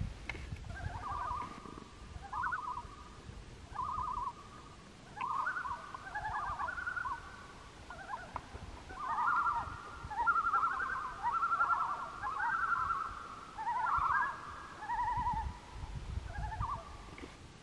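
Several common loons giving tremolo calls: rapid quavering laughs, repeated over and over and overlapping at slightly different pitches. The tremolo is the loon's alarm call, given here during the upright 'penguin dance' display.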